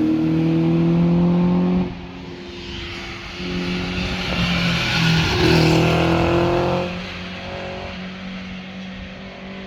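Performance cars accelerating past one after another, engines rising in pitch under throttle. The first car's loud engine note drops away about two seconds in. A second car comes up and passes with a climbing engine note around the middle, and its sound then falls to a quieter steady drone as it pulls away.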